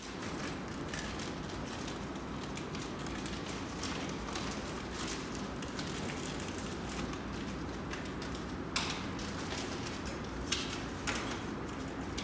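Steady room tone with a few small clicks and rustles of things being handled, a wallet and sample-kit packaging; three sharper clicks come near the end.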